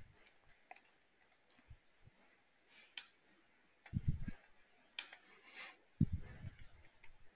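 Faint clicks and soft knocks from a computer mouse and keyboard in use at a desk: scattered single clicks, with short clusters of low knocks about four seconds in and again about six seconds in.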